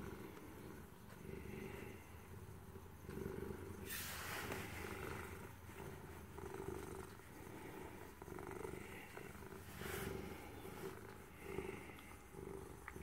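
Black domestic cat purring steadily, the purr swelling and fading with each breath. Two brief rustles, about four and ten seconds in.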